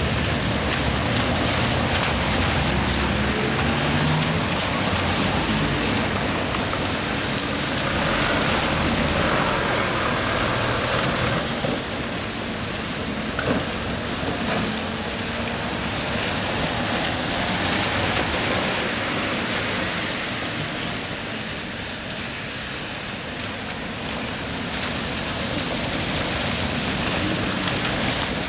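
Steady hiss of rain and wet-road vehicle noise, with a low engine hum in the first few seconds.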